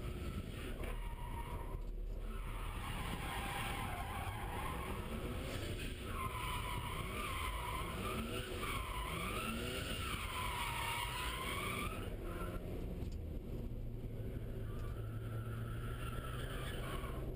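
BMW E36 M3's straight-six engine and rear tyres during a drift, heard from inside the cabin: the tyres squeal in a wavering, rising-and-falling screech through repeated slides while the engine revs climb several times. About twelve seconds in the squeal stops and the engine holds a steadier note.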